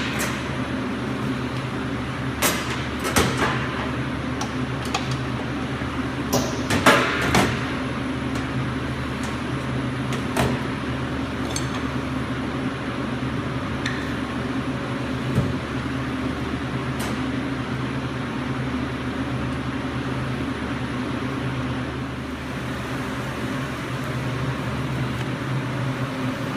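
Electric meat grinder running with a steady motor hum, while fat is fed through to push out the last of the ground pork. A few sharp clicks and knocks come in the first ten seconds.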